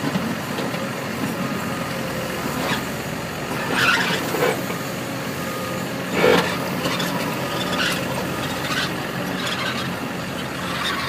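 Caterpillar 329 crawler excavator's diesel engine running steadily under load while the machine climbs, with several short, higher-pitched metallic screeches, the loudest about four seconds in and about six seconds in.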